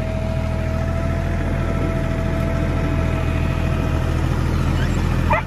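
Kioti compact tractor's diesel engine running at a steady speed as the tractor is driven, heard from the operator's seat, with a steady whine alongside that drops away about four seconds in.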